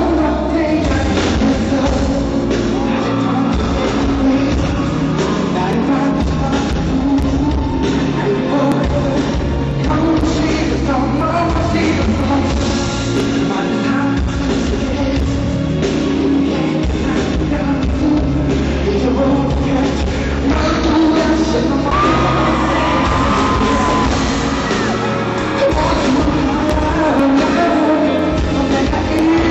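Live concert music with a singer and a full band, recorded from the audience in a large hall, with some yelling from the crowd.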